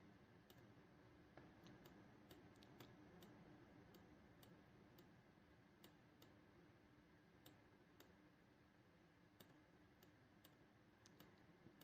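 Near silence, with many faint, irregularly spaced clicks over a faint steady hum.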